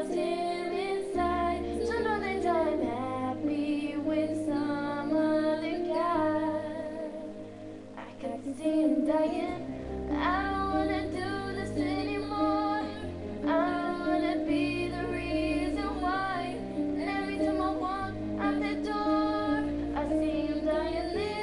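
A young woman singing a slow pop ballad with vibrato over a backing track of sustained low accompaniment.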